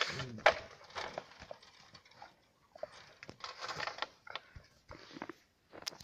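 German shepherds scuffling in packed snow: paws crunching and scraping, with scattered sharp clicks and knocks, loudest right at the start.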